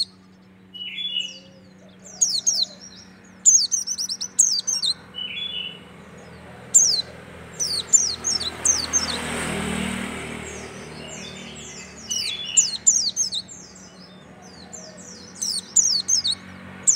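Caged white-eye (pleci) singing in several quick bursts of high, falling chirps, with pauses between the phrases. A soft rushing noise swells and fades in the middle.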